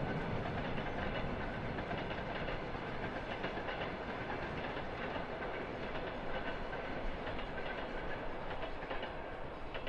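Fireworks: a dense crackle and rumble with scattered small pops, slowly fading after a burst.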